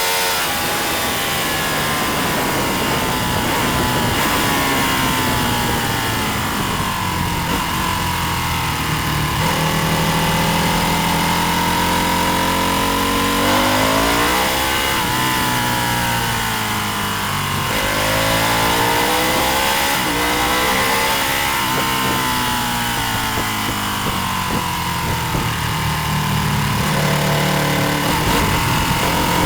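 Racing motorcycle engine at full race pace, its pitch climbing under acceleration and sweeping down as the bike slows, several times over, with a steady rush of wind noise.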